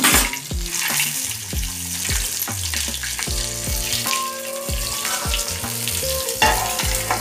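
Stuffed green bell peppers frying in hot oil on a flat griddle, a steady sizzle, with background music and a steady beat underneath.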